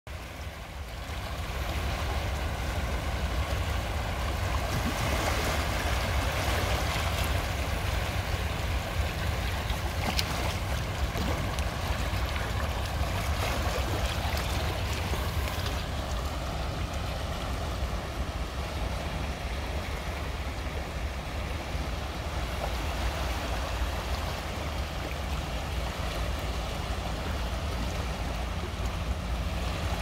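Shallow sea surf washing over sand and black basalt rocks, a steady hiss of water that swells and eases, over a constant low rumble. It fades in over the first second or two.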